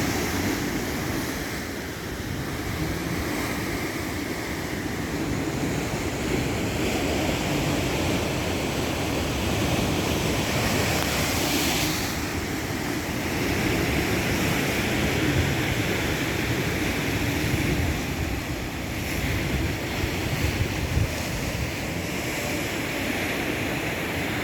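Atlantic Ocean surf washing and breaking in continuous swells, with wind rumbling on the microphone.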